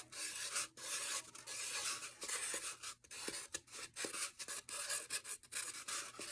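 Sharpie marker tip scratching over a rain stick tube in short repeated strokes, about two or three a second, drawing small ovals.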